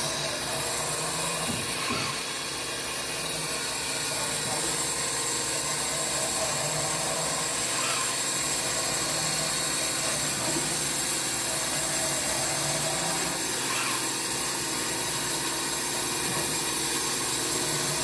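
Fadal VMC40 CNC vertical mill running, a steady mechanical hiss and hum with several constant whining tones and a few faint ticks.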